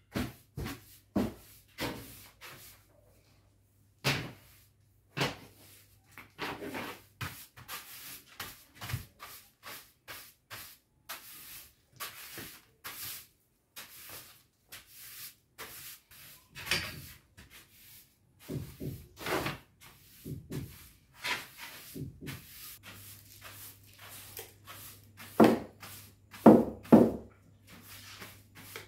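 Floor being scrubbed with a cleaning brush: short, irregular brushing strokes a few times a second, with a few louder strokes near the end.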